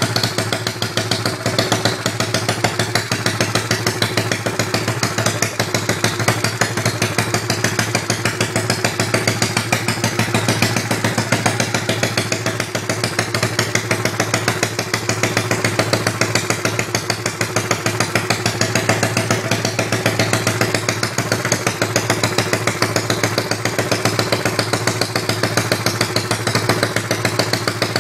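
110cc pocket bike engine running steadily at idle with an even rapid exhaust pulse and no revving; the exhaust still leaks at the pipe joint despite a new O-ring.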